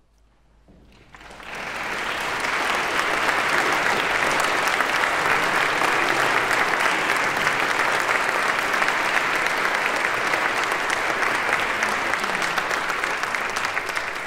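Audience applause: clapping starts about a second in, builds quickly, then holds steady and dense.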